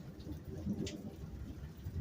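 Storm ambience: a low, uneven rumble with scattered drips, one sharper drip-like tick about a second in.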